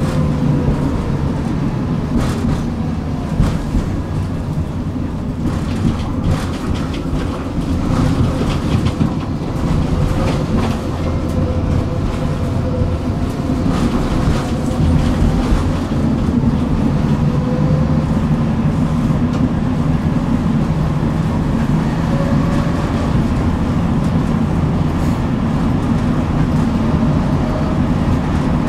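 City tram running along the track: a steady rumble of wheels on rails with scattered clacks over joints, mostly in the first half, and faint whining tones that slowly rise and fall.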